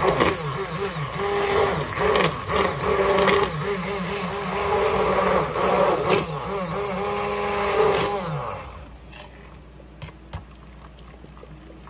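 Hand-held immersion blender running in a pot of warm liquid cream, blending the oil-and-water emulsion, its motor note wavering as it works. It is switched off about eight and a half seconds in and winds down.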